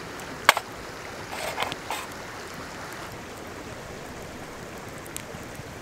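Wood campfire crackling: one sharp pop about half a second in and a few smaller crackles around two seconds, over a steady rushing background.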